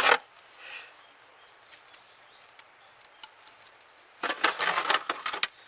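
Containers being handled in a refrigerator: a sharp clack at the start, then a pause, then about a second and a half of clattering and rustling near the end as items are moved.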